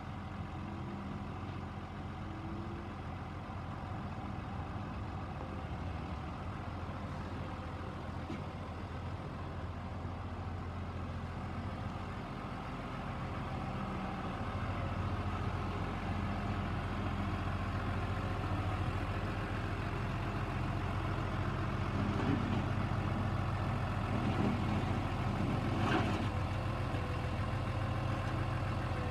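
New Holland T6050 tractor's six-cylinder diesel engine running at low speed as the tractor drives up, growing louder about halfway through as it comes close. A short knock sounds near the end.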